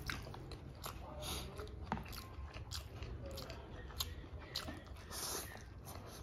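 Close-miked eating of noodles: chewing and slurping, with sharp clicks of forks against ceramic plates, the loudest about two and four seconds in.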